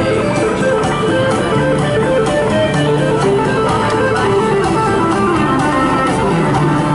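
Guitar music playing steadily, with notes changing throughout.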